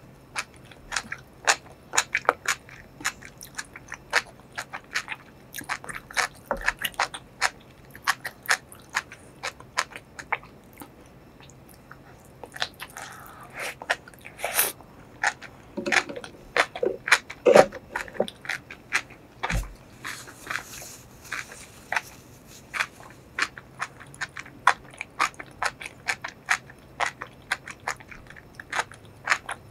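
Close-miked chewing of enoki mushrooms in spicy sauce: wet, crisp mouth clicks coming thick and irregular, with a few louder bites and sucking sounds about halfway through.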